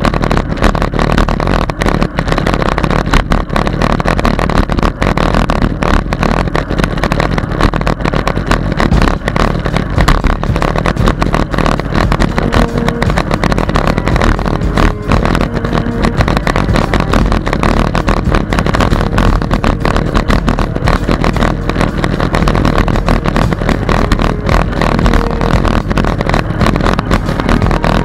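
Wind buffeting the microphone of a bicycle-mounted camera while riding, with constant rattling and knocking as the camera and bike jolt over the path.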